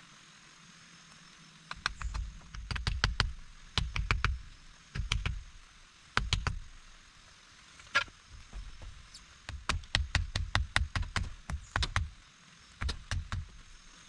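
Irregular clusters of sharp knocks and dull thumps, several to a second in bursts, with short pauses between the bursts.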